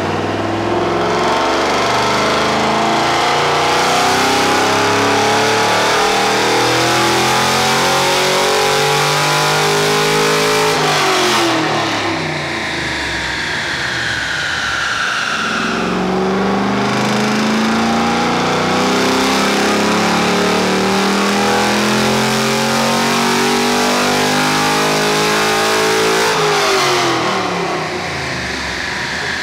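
A C6 Corvette Z06's 7.0-litre LS7 V8 with an aftermarket heads-and-cam package, making two full-throttle runs on a chassis dyno. The revs climb steadily for about ten seconds and then drop off. They climb again from about sixteen seconds in and drop near the end.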